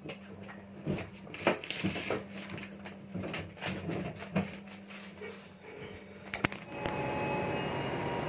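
Scattered clicks, knocks and paper rustles of handling, as the intercom handset is put away and papers are handled, over a low steady hum inside the passenger train. About seven seconds in, this gives way to the steady whoosh of the train's air-conditioning.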